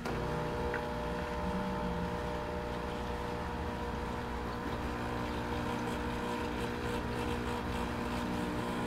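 Nespresso capsule machine's pump humming steadily with a buzz after the brew button is pressed, pushing Red Bull from the reservoir through the vanilla capsule before the drink starts to run.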